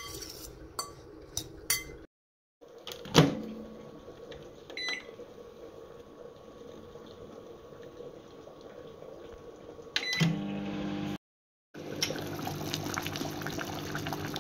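A fork scrapes and clicks against a glass bowl of attiéké, then a microwave oven door shuts with a sharp clack. A keypad beep sounds, and about ten seconds in a second click and beep start the microwave, which runs with a steady hum. Near the end a pot of sauce bubbles at a simmer.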